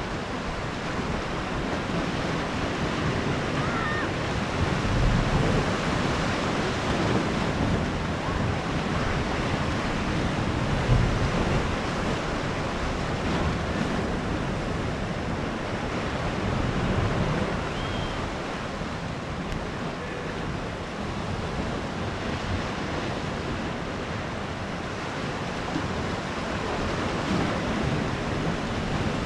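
Sea waves washing onto the shore of a small beach cove: a steady surf that swells every few seconds as waves break.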